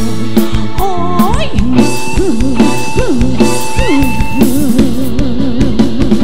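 Live luk thung band music: a drum kit and bass keep a steady beat under a lead melody line that bends and wavers in pitch.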